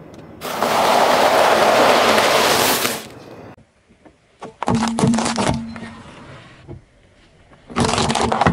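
A car tyre rolls over a pile of cheese puffs with a dense crunching that lasts about two and a half seconds. Halfway through, a short run of sharp cracks comes as parsnips snap under the tyre. Near the end, carrots crack and snap as the tyre flattens them.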